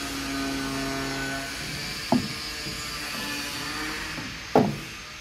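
Two sharp knocks about two and a half seconds apart, from the metal parts of a printer's printhead carriage being handled, over a steady hiss. A low hum stops about a second and a half in.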